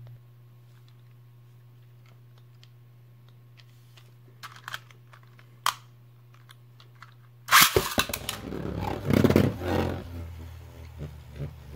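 Plastic clicks as a Beyblade Burst top is fitted to its launcher, then the top is launched suddenly about two-thirds of the way in and spins, scraping and rattling loudly across a plastic Beystadium floor. The sound tapers off into scattered clicks as it settles.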